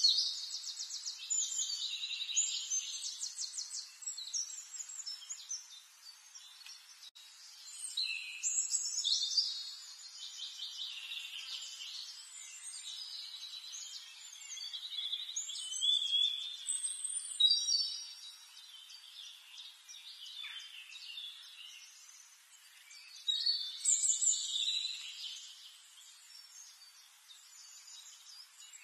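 Birds chirping and singing in high-pitched bursts of a few seconds, with quick trills and sweeping calls.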